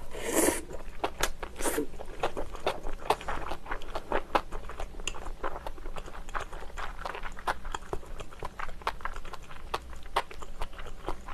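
Close-miked chewing of a mouthful of food topped with an enoki mushroom. A short noisy sound comes as the bite goes in, then a long run of small, irregular mouth clicks.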